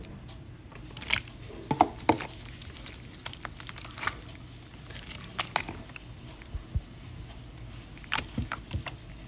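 Green jiggly slime being squished and pressed by hand, giving irregular sticky pops and crackles.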